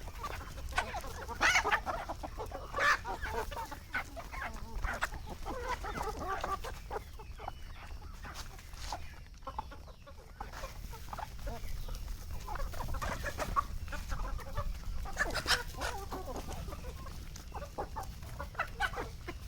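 A flock of desi (country) chickens clucking, with many short, scattered calls over a low steady rumble.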